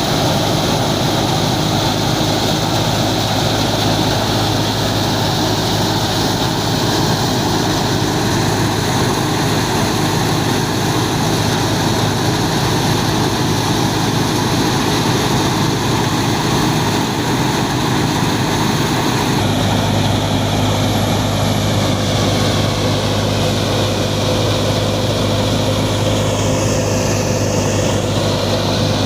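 Massey Ferguson 385 tractor's diesel engine running steadily, driving a wheat thresher, with a loud, even machine drone. The sound changes abruptly about twenty seconds in, and a few gliding tones come in near the end.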